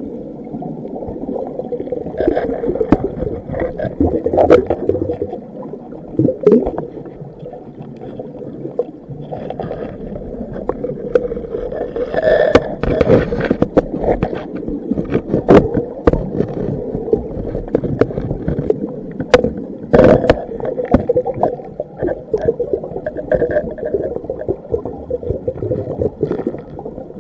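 Muffled underwater rumble picked up by a submerged camera, with irregular sharp clicks and scrapes of a metal pick against granite in a crevice while sniping for gold.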